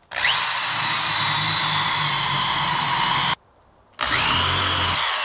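Corded electric drill boring a hole down through two crossed logs. It runs twice, about three seconds and then about a second, with a short stop between, and each run starts with a rising whine as the drill spins up.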